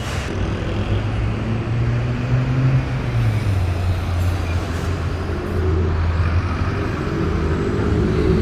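Road traffic: vehicles passing with the steady low drone of a heavy engine over tyre noise, its pitch dropping a little about three seconds in.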